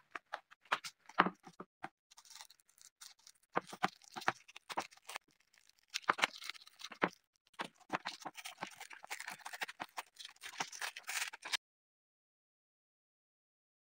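Stiff paper sanding discs clicking and sliding against each other and the wooden board as they are handled. About six seconds in, a utility knife blade scrapes and cuts through a hook-and-loop sanding backing pad in a run of rapid scratchy strokes, which stop abruptly near the end.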